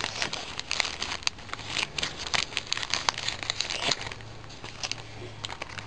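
Clear plastic Floss-A-Way thread bags crinkling as they are handled, with many small irregular crackles that ease off after about four seconds.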